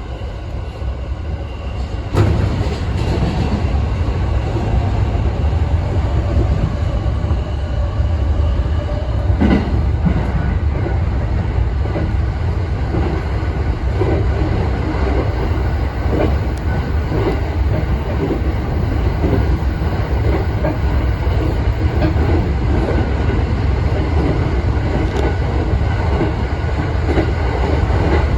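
Electric commuter train running at speed, heard inside the carriage: a steady low rumble with the wheels clattering over rail joints, growing louder about two seconds in.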